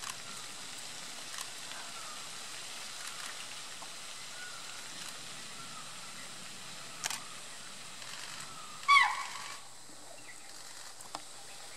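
A spotted deer (chital) gives one loud, shrill alarm call about nine seconds in, sliding down in pitch, the deer's warning at a tiger in view. Under it runs a steady outdoor hiss with a few faint bird chirps.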